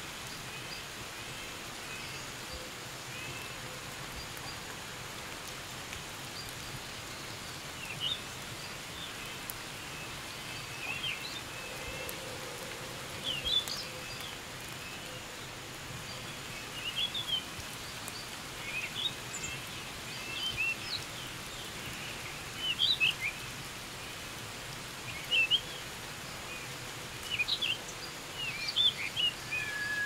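Steady light rain falling on forest foliage, with birds chirping in short calls that start after the first few seconds and come more often toward the end.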